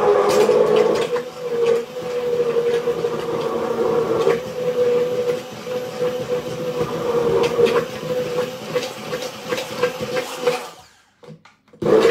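Hand-held immersion blender running in a glass bowl of cake batter, a steady motor whine with scattered clicks, cutting out about a second before the end.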